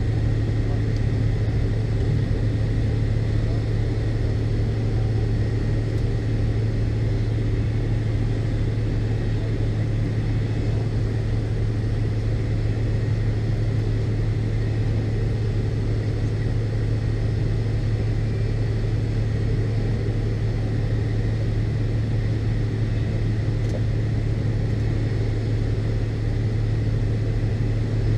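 Steady cabin drone of an MD-82 airliner's rear-mounted Pratt & Whitney JT8D turbofans: a deep hum with a faint high whine, unchanging in pitch and loudness.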